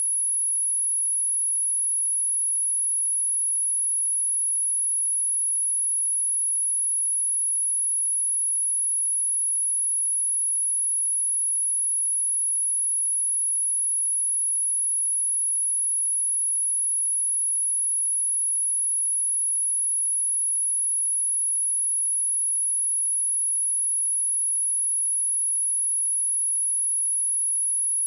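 Pure sine-wave test tone at 10,514 Hz for checking speakers: one very high-pitched tone held at a constant pitch and level.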